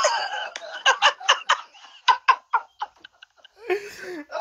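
Men laughing hard: a quick run of short, breathy laugh pulses, several a second, that trails off about three seconds in, then a softer breathy laugh near the end.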